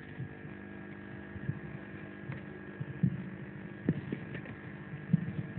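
Steady hum of several tones, the background sound of a hall's sound system, with a few soft knocks scattered through it.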